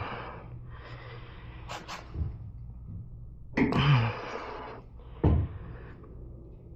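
A man breathing out hard several times with a short voiced grunt in the middle, and a couple of small sharp clicks about two seconds in.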